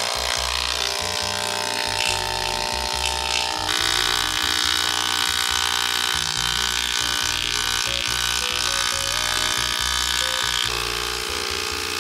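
Small handheld electric water sprayer buzzing steadily as it sprays a fine jet of water over juniper deadwood to clean it. Background music plays over it.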